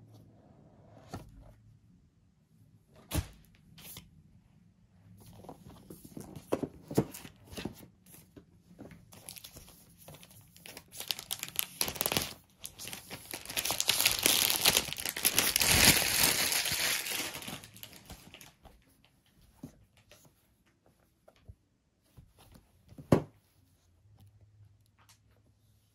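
Unboxing handling of a MacBook Air box: scattered taps and knocks of cardboard early on, then from about nine seconds in a long stretch of tearing and crinkling of the protective paper wrap as the laptop is pulled free, loudest a little past the middle. One sharp knock near the end.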